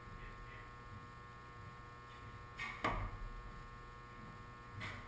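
Recurve bow shot: a sharp snap of the string a little under three seconds in, then a low thud as the arrow strikes the target a moment later. A steady electrical hum runs underneath.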